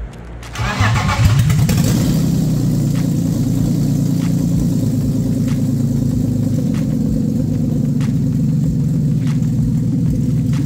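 Freshly swapped BMW M52B28 2.8-litre straight-six cranking and catching about a second in, then running steadily.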